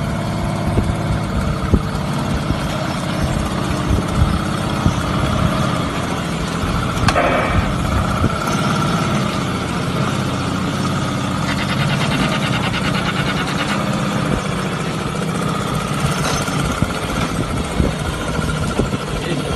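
Homemade model V12 engine, loosely patterned on the Tiger tank's Maybach, running steadily with a dense, rapid low rumble.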